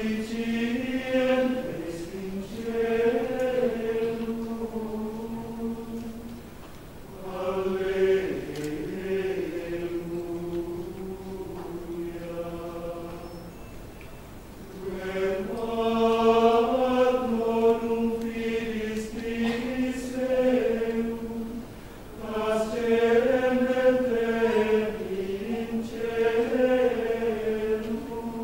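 Adult men's choir singing Gregorian chant, unaccompanied, in long held phrases of several seconds each with short breaks for breath between them.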